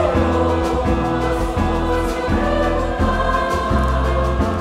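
A large mixed choir singing a boi de Parintins toada over a low bass line that steps from note to note in short, even beats.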